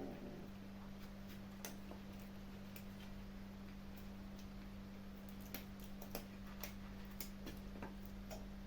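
Kittens eating: sparse, irregular small clicks and crunches of chewing, over a steady low hum.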